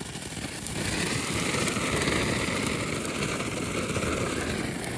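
A Pokeball novelty fountain firework going off, starting about a second in with a steady hissing and crackling spray of sparks.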